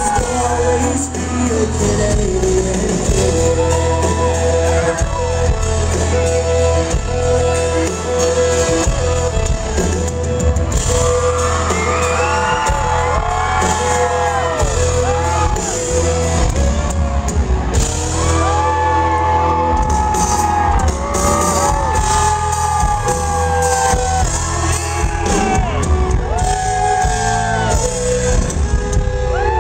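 Live country band playing loud in a club, with electric and acoustic guitars, bass, drums and fiddle, plus singing and crowd shouts, heard from within the audience.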